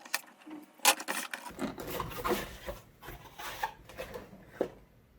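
Packaging being handled: rubbing and scraping for a couple of seconds, with a few light knocks and clicks before and after.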